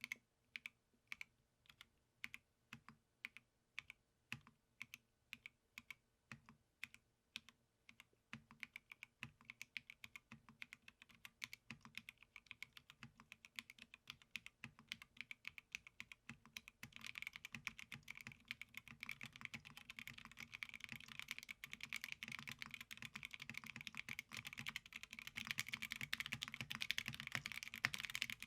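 Keystrokes on a KBD8X MKIII custom mechanical keyboard with Tecsee Ice Mint switches and PBT keycaps. Single keys are pressed slowly, about one every half second, then fast continuous typing takes over about eight seconds in and grows busier and louder about halfway through.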